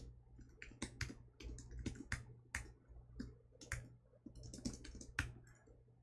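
Typing on a computer keyboard: a run of irregular key clicks, with a sharper click right at the start.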